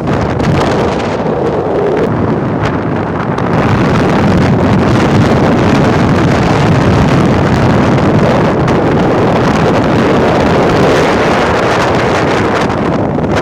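Wind buffeting the microphone at sea, a loud steady rushing that swells a little after the first few seconds.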